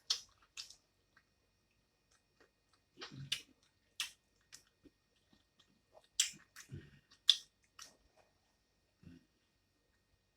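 Close-up eating sounds: a person chewing, with irregular wet mouth smacks and clicks every second or so and a few soft low thuds.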